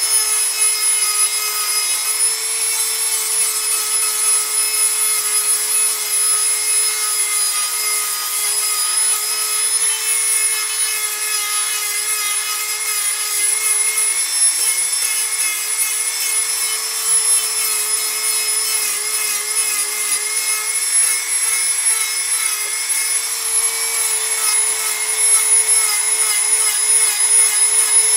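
Handheld rotary tool running at high speed with a steady whine, its bit grinding into carved wood to round over the edges. In the last few seconds it grows louder and its pitch wavers as it bears harder on the wood.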